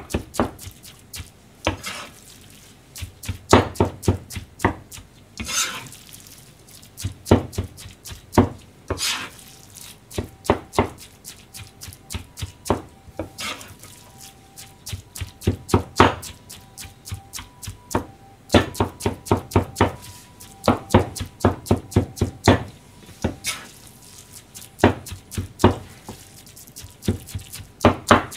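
Cleaver chopping a mound of minced-meat hamburger mixture against a plastic cutting board: quick runs of sharp knocks, several a second, with short pauses between.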